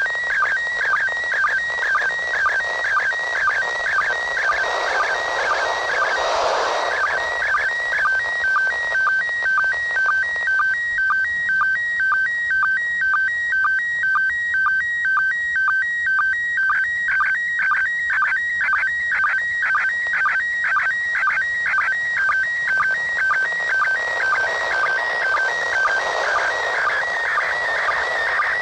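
Slow-scan TV image signal from the International Space Station in PD120 mode, heard through the speaker of a Yaesu FT-60 handheld FM radio. It is a warbling stream of tones repeating about twice a second, and static hiss breaks in twice where the signal fades, which shows up as noise bars in the decoded picture.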